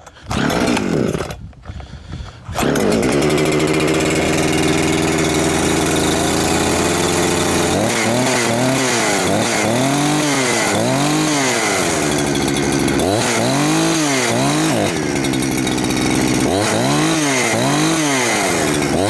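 Huyosen 6524 two-stroke chainsaw, a 65cc Husqvarna 365 clone, being pull-started on choke: after a couple of seconds of sputtering it catches and runs steadily, then from about eight seconds in it is revved up and down several times.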